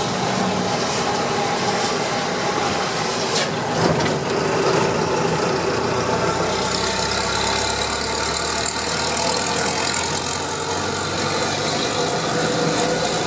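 Heavy truck's diesel engine running steadily as the truck drives through town, its exhaust open without the long tailpipe extension that normally muffles it. A couple of short knocks come about three and a half to four seconds in.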